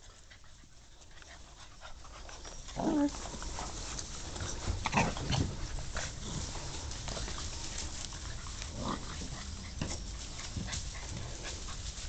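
German shorthaired pointer puppies giving a few short whimpers, the clearest about three seconds in, falling in pitch.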